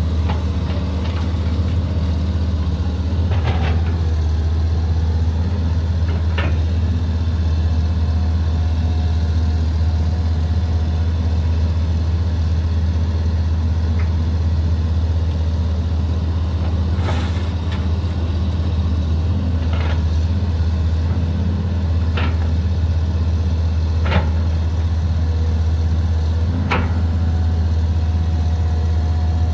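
Diesel engine of a Caterpillar 320 GC excavator running steadily with a deep, even drone. Short, sharp knocks break in about seven times, irregularly spaced.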